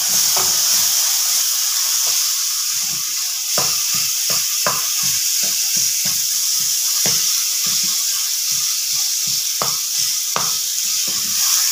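Onion-tomato masala sizzling steadily in oil in a metal kadai, with a spatula scraping and knocking against the pan in short irregular strokes as it is stirred. The oil has separated from the masala, the sign that the sauté is done.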